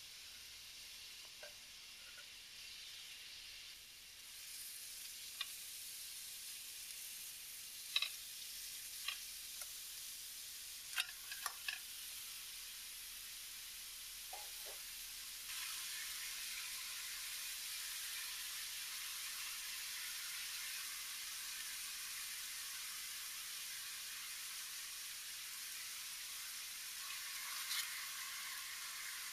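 Chopped carrot, onion and celery frying in olive oil in a steel pan: a steady sizzling hiss with a few sharp pops and clicks. The sizzle gets louder about four seconds in and again about halfway through.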